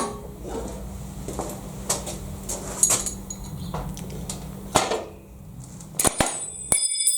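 Steel tools and milling-vice parts being handled and set down on a workbench: a few separate sharp metallic clinks and knocks, with one piece ringing briefly near the end.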